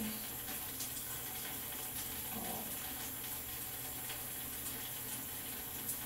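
Steady hiss of background noise, with faint rustles and small clicks of hands handling twisted natural hair.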